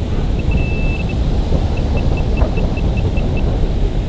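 Handheld metal-detecting pinpointer beeping as it is pushed into the sand of the dig hole, signalling buried metal: one long tone, then a run of short even beeps about five a second. Heavy wind rumble on the microphone runs underneath.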